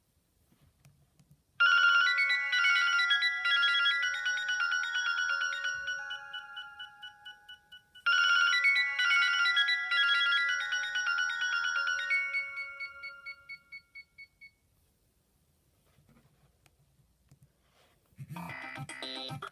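A Nokia 2630 ringtone played on a Sony Ericsson W595 mobile phone's speaker. A short melody plays twice and dies away, and a different ringtone starts near the end.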